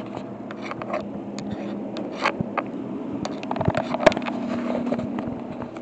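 Steady low hum with many short, irregular ticks and clicks scattered through it, from a room full of ticking wall clocks, a pendulum wall clock among them.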